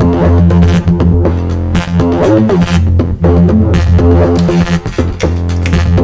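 Make Noise Eurorack modular synthesizer playing a rhythmic groove. A steady deep bass line sits under a repeating pattern of short, bouncing pitched notes and clicks, set off by the MATHS function generator's two outer channels triggering each other in an endless volley, with modulated Erbe-Verb reverb.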